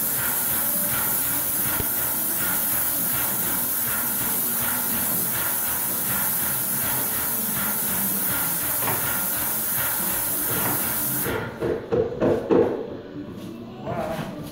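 Paint spray gun hissing steadily as it sprays paint, cutting off suddenly about eleven seconds in; a few louder clunks of handling follow.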